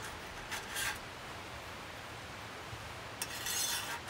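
Faint metal-on-metal scraping: a thin steel rod sliding through the holes of a stainless steel folding camp stove, in two short strokes, about half a second in and again about three seconds in.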